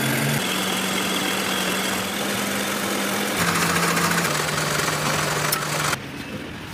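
Metal lathe running with a steady motor hum while a steel bolt is turned down, a cutting tool hissing against the spinning thread; about halfway the sound shifts as a file is held against the turning bolt. The noise drops much quieter near the end.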